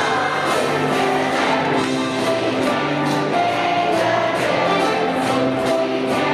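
A group of young children singing a song together, accompanied by music with a steady beat.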